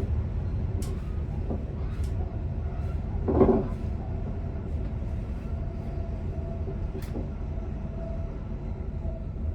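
Commuter train running, heard from the driver's cab: a steady low rumble of the running gear on the track, with a few light clicks and a short louder pitched sound about three and a half seconds in.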